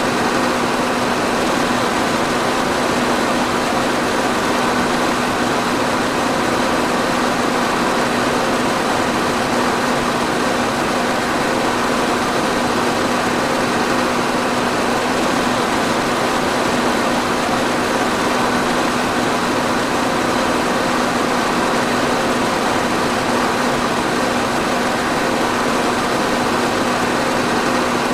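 Electric fan running steadily: an even rush of air with a low, steady hum.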